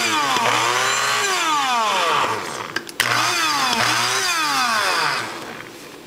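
Mr. Coffee electric blade coffee grinder's motor run in two short bursts of about two seconds each, spinning up and winding down each time. It runs because the lid is clipped on and pressed down, closing the contact the grinder needs. A click starts the second burst.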